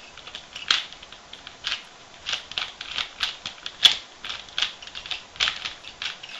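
Plastic 3x3x3 Rubik's Cube being turned rapidly by hand, its layers clicking and clacking in quick, irregular strokes, a few each second.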